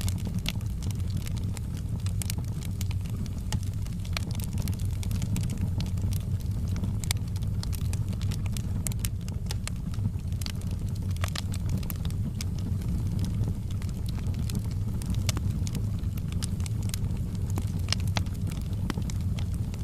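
Wood fire burning in a fireplace: a steady low rumble with many scattered sharp crackles and pops from the burning logs.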